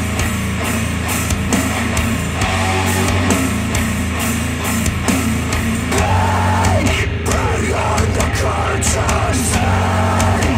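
Rock music with guitar and drums, played back through Polk Audio XT15 bookshelf speakers.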